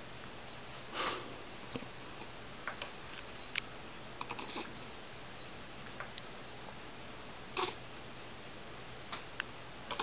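Baby hiccuping: two short hiccups, about a second in and again at about seven and a half seconds, with small wet clicks from sucking on his fist in between.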